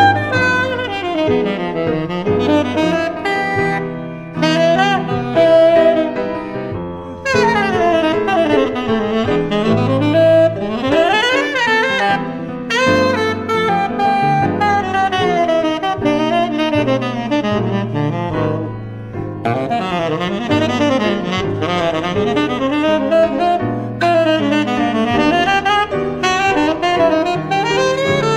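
Tenor saxophone playing fast runs that sweep up and down through its range, over a sustained piano accompaniment.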